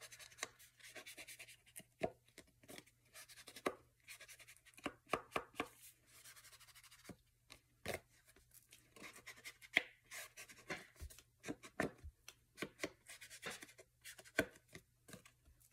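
Walnut stain ink pad dabbed and rubbed along the edges of paper or card stock to distress them: a quiet, irregular run of light taps and clicks with soft scuffing in between.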